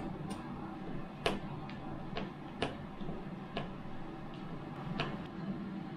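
Hand screwdriver driving a screw through a ceiling light's mounting plate into a drywall anchor, giving irregular sharp clicks over a low steady hum.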